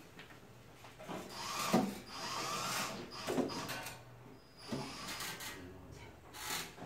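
Tool work on a wooden board: several short bursts of noise, the longest about a second and a half.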